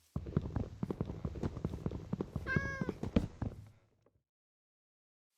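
A cat meows once, briefly, about halfway through, over a run of quick clicks and rustling that stops a little over a second before the end.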